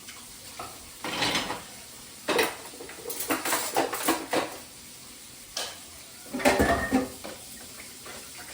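Dishes and cutlery clattering as they are handled, in bursts of clinks and knocks: one about a second in, a longer run from about two to four and a half seconds, and another around six and a half seconds.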